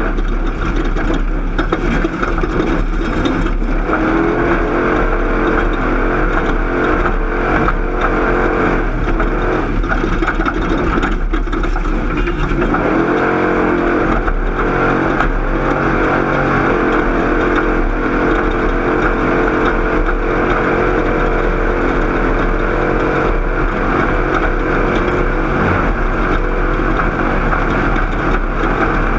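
Off-road race vehicle's engine running hard and continuously, heard from on board with noise and rattle over it. The revs dip about four seconds in and climb again about thirteen seconds in, with short knocks scattered throughout.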